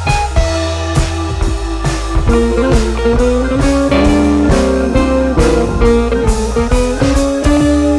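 Background music: guitar and drums with a steady beat.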